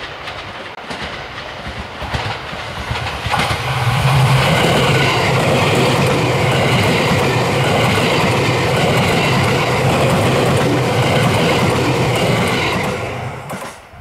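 JR West 287 series electric express train passing close by, its wheels clattering over the rail joints. The running noise builds from about three seconds in, holds loud and steady with a low hum, and cuts off abruptly just before the end.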